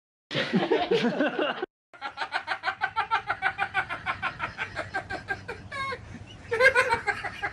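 A person laughing in quick, even pulses, about four or five a second.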